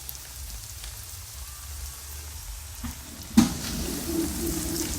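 Beef coated in cornstarch sizzling as it fries in hot oil in a pan. A single sharp clack about three and a half seconds in, after which the sizzling is a little louder.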